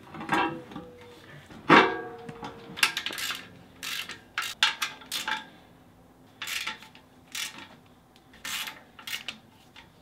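Metal clanks and knocks as a differential is set into a steel car subframe and bolted up. There is one loud ringing clank a little under two seconds in, then a run of short clicks and taps from a wrench on the bolts.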